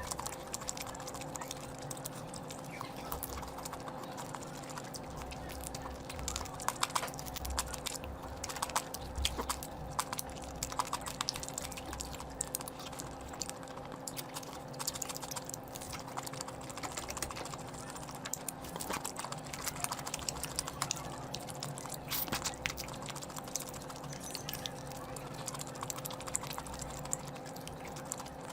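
A person eating curry close to the microphone: irregular wet smacks and clicks of chewing, over a steady low hum.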